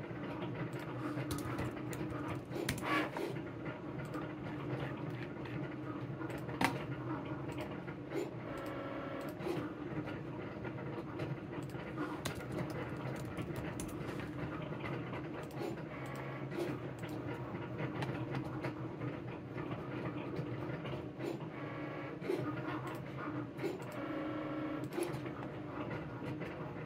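Desktop printer running, its motor whining in passes that come and go over a steady hum, with scattered clicks and taps.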